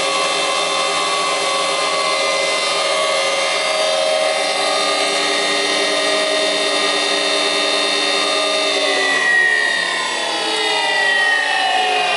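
Bauerle spindle moulder running with no workpiece: a steady, many-toned whine from the motor and spindle. About nine seconds in, its pitch starts to fall steadily as the spindle slows down.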